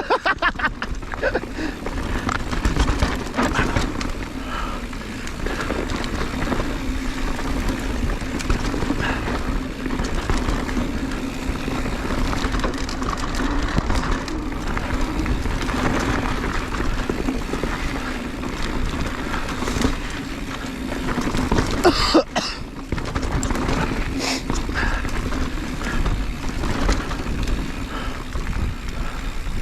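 Mountain bike descending a rocky downhill trail at speed: a steady rumble of tyres and wind on the microphone with frequent rattles and clatters from the bike over rocks, and a sharp, loud clatter about two-thirds of the way through.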